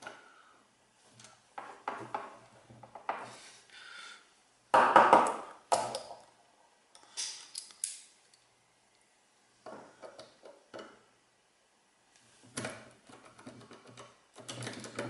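Metal clicking and rattling of a tubular lock impressioning tool being handled and worked in a tubular lock. It comes in scattered bursts with silent gaps between them, and the loudest rattle is about five seconds in.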